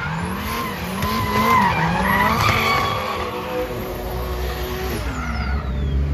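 Drift cars sliding sideways in a tandem run, their engines revving up and down hard while the tyres squeal.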